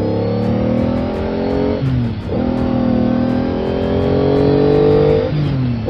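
Car engine accelerating through the gears: its pitch climbs, drops at a shift about two seconds in, climbs again and shifts once more near the end. Background music with electric guitar plays underneath.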